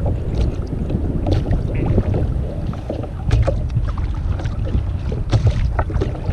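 Wind buffeting the microphone with water sloshing against a sit-on-top kayak's hull, and scattered short knocks and splashes from the fishing tackle and water.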